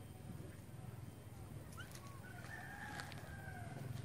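Faint outdoor animal calls: a few short rising chirps, then one longer call lasting under a second about two and a half seconds in, over a steady low hum.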